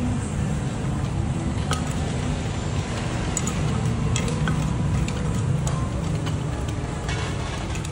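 Wooden pestle and spoon stirring and knocking in a clay mortar while mixing som tam, a few light knocks scattered through, over a steady low background rumble.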